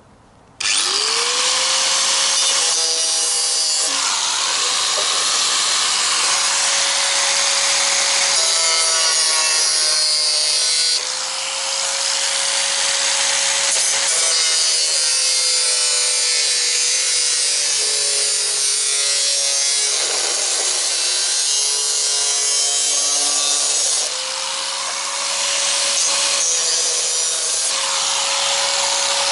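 Corded electric drill fitted with a disc, cutting into a thin steel fuel can: the motor spins up with a rising whine about half a second in, then runs steadily under load with a harsh grinding hiss. The whine sags and the sound briefly drops twice, as the disc is eased off and pressed back into the metal.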